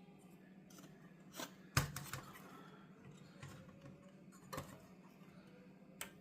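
Scattered sharp plastic clicks and taps, the loudest about two seconds in, from prying at the clips and tabs of a car radio display assembly to free a wire connector. A faint steady hum runs underneath.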